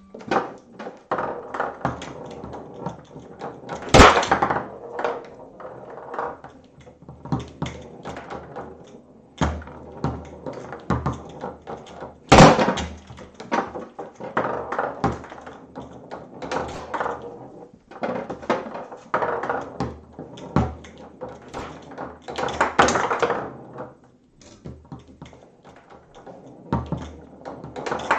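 Foosball table in play: a steady run of knocks and clacks as the ball is struck and passed between the figures and the rods slide and bump against the table, with a few sharper, louder hits.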